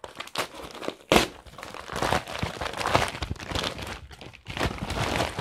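Parcel packaging being torn open and crumpled by hand: irregular crinkling and tearing, with a sharp crack about a second in.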